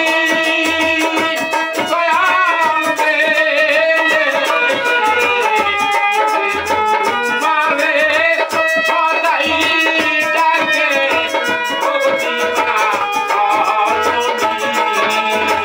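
Harmonium playing a Murshidi folk song while a man sings, with a plucked long-necked lute, a low drum beat and a fast rattling percussion in the accompaniment.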